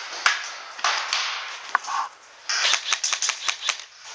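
Airsoft gunfire: a quick run of sharp clicks and cracks, thickest about two and a half seconds in, with rustling noise between the shots.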